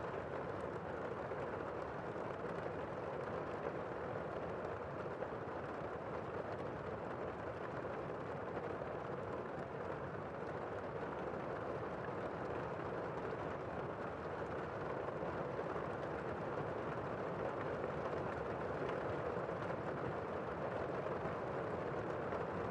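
Heavy rain heard from indoors: a steady, muffled hiss with little high end.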